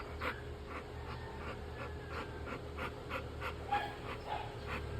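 American bully dog panting hard in a quick, even rhythm, about three breaths a second.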